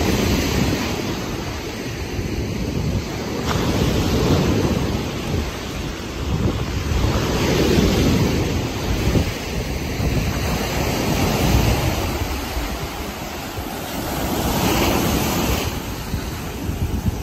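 Lake Erie surf breaking and washing up on a sandy beach, the rush swelling and easing about every three to four seconds, with wind buffeting the microphone.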